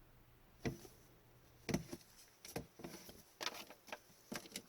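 Upper Deck hockey trading cards being handled and sorted by hand: a scattered series of soft taps and light slides of card stock.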